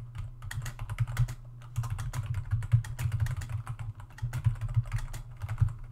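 Typing on a computer keyboard: quick, irregular keystrokes clicking as a line of text is entered.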